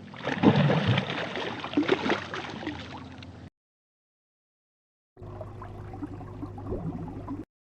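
Two separate water clips: about three and a half seconds of splashing and gurgling with many sharp little splashes, then, after a gap of silence, a quieter gurgle over a steady low hum.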